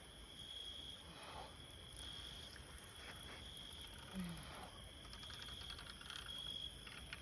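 Crickets trilling faintly and steadily, a high pulsing chirp that keeps going under a few brief low sounds.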